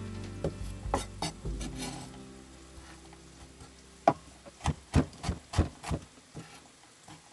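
Chef's knife chopping on a wooden cutting board: a few sharp knocks early on, then from about four seconds in a quick run of about seven chops, two to three a second. Background music fades out in the first two seconds.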